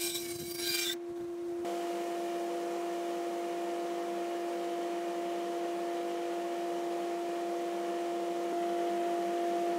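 A bandsaw cutting through thick hardwood for about a second and a half, stopping abruptly. Then a steady, unchanging hum of one pure tone with a fainter tone an octave above.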